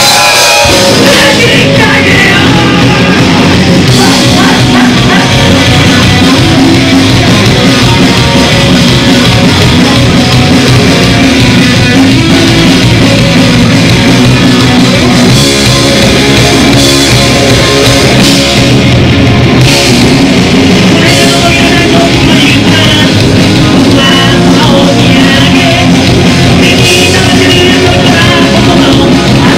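Live punk rock band playing loud with electric guitars, bass, drums and a singer, heard from within the crowd.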